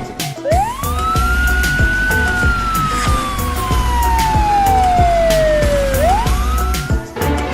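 A siren-like whistling tone that swoops up, falls slowly for about five seconds, then swoops up again near the end, over a steady low rumble with rapid clatter.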